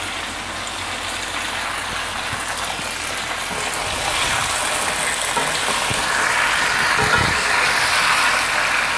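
Raw chicken pieces sizzling and crackling in hot oil in a nonstick wok on a medium-to-high flame, with a wooden spatula scraping and turning them from about four seconds in; the sizzle grows louder as the pieces are stirred.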